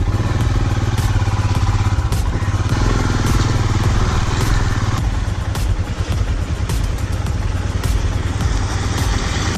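Royal Enfield Himalayan's single-cylinder engine running steadily as the bike rides, heard from on the motorcycle with road and wind noise.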